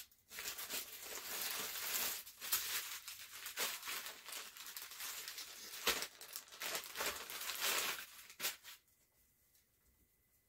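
Packaging crinkling and tearing as a package holding a t-shirt is opened and handled by hand, a dense rustle with many small crackles that stops about two seconds before the end.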